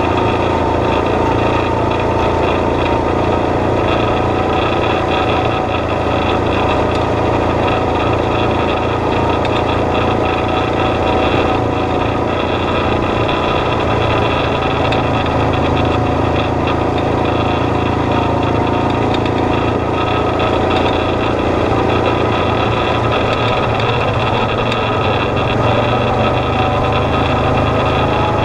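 Engine of an off-road vehicle running steadily as it drives along a dirt track, with a constant, even note.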